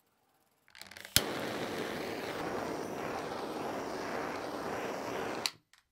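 Handheld gas torch lit with a few small clicks and then a sharp click of its igniter about a second in, followed by the steady hiss of the flame for about four seconds until it is shut off suddenly.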